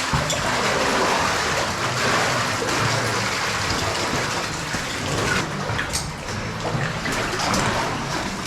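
Water splashing and sloshing as cavers wade through a waist-deep cave pool, with a few sharp ticks in the second half.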